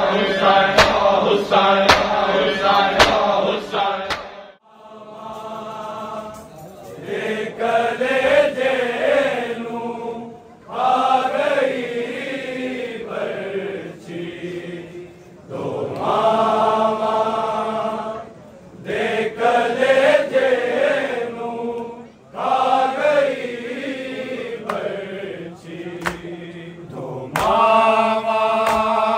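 Men chanting a Punjabi noha, a Shia lament, in long held melodic phrases separated by short breaks. Sharp beats about once a second sound under the chant in the first few seconds.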